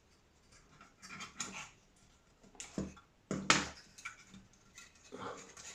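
Tweezers and a nylon cable tie scraping and clicking against the wooden airframe in a few short bursts as the tie is worked through a hole, the loudest about three and a half seconds in.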